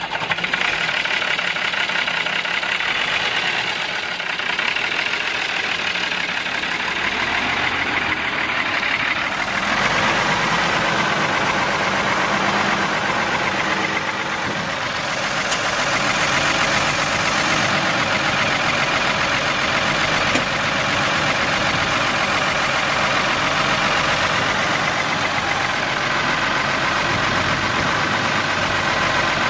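Ford 9600 tractor's six-cylinder diesel engine running steadily, getting louder and fuller about ten seconds in.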